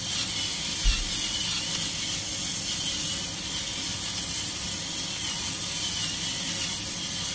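Black pepper being ground from a twist pepper mill, a steady ratcheting, rasping grind, over chopped vegetables frying in the pan. A short low thump about a second in.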